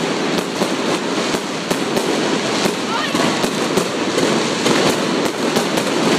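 Fireworks display going off: a dense, continuous barrage of rapid bangs and crackling with no let-up.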